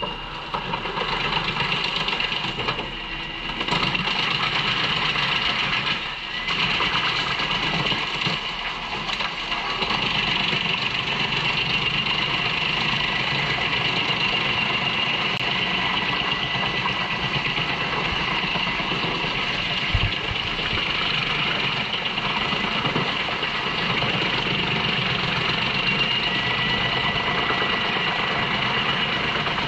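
JENZ HEM 593-R truck-mounted wood chipper running under load, chipping poplar logs fed in by its crane: a loud, steady mechanical din with a high whine over it, louder from about four seconds in.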